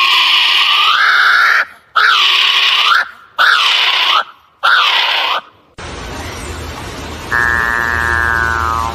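Four loud, nasal calls from a bird, each a second or so long and bending in pitch, with short gaps between them. About six seconds in they give way to a low hum, and a falling electronic-sounding tone starts about a second later.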